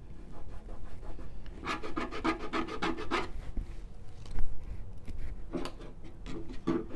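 A hand tool scrubbing and scraping over paint-covered paper in quick back-and-forth strokes, working back into dried paint. There is a run of rapid strokes about two seconds in, a single knock in the middle, and a shorter run near the end.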